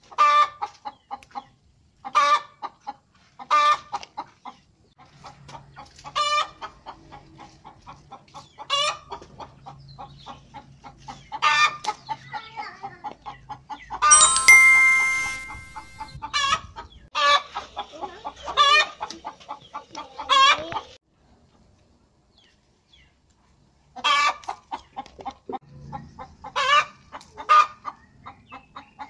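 Chickens clucking: a loud cackling call every two to three seconds over a run of softer, quicker clucks. A short bell-like chime rings about 14 seconds in, and the clucking stops for about three seconds a little past the middle before starting again.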